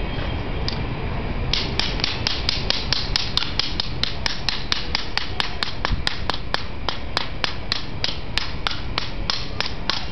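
Hand hammer striking red-hot steel on a small steel-block anvil: a quick, even run of blows, about four a second, starting about a second and a half in, over a steady low rumble.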